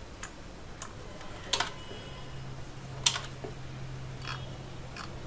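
Computer keyboard and mouse clicking: about six separate short clicks, spaced irregularly, as shortcuts are pressed and a drawing is edited on screen.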